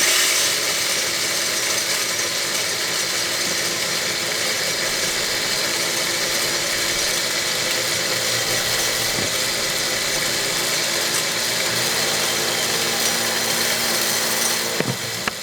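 Homemade electric grain grinder switched on, its motor spinning a fly-cutter blade through a charge of shelled corn with a steady loud whirring hum that starts abruptly and runs for about fifteen seconds.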